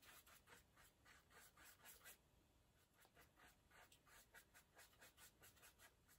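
Faint, quick scratchy dabs of a small paintbrush on paper, about five a second, with a short pause about two seconds in, as brown acrylic paint is worked into the sunflower's centre.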